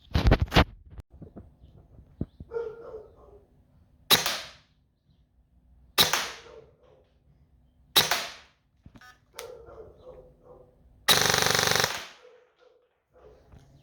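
Airsoft electric gun (AEG) firing: a few quick shots at the start, then three single shots about two seconds apart, then a full-auto burst lasting about a second.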